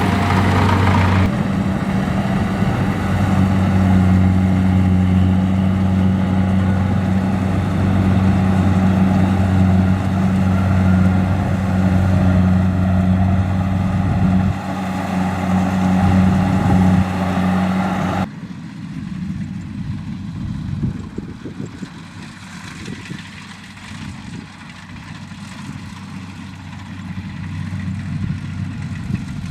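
Kubota DC-70 rice combine harvester's diesel engine running steadily under load, a low drone with a loud hiss over it. About eighteen seconds in, the hiss cuts off abruptly, leaving a quieter, lower engine hum.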